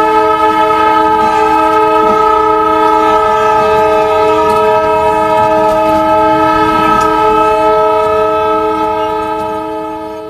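A train horn held in one long, steady blast of several tones at once, over the rumble of the moving train. It fades out near the end.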